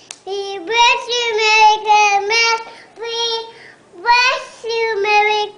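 A toddler singing in a high voice, holding steady notes in three short phrases with brief pauses between them.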